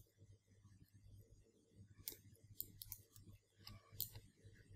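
Near silence with a handful of faint computer mouse clicks in the second half.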